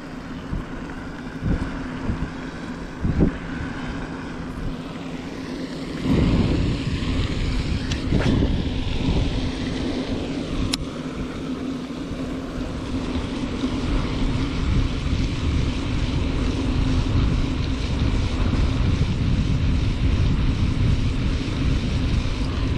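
Wind buffeting the microphone, a low rumble that grows heavier about six seconds in, over a faint steady low hum. A few light knocks from handling the rod come in the first few seconds.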